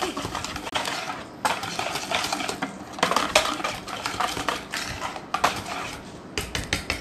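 Wire balloon whisk beating semolina cake batter in a plastic bowl: rapid, irregular strokes of the wires scraping and clicking against the bowl.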